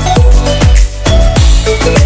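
Background music: an electronic dance track with a steady beat of deep, punchy kick drums and a short repeating melody.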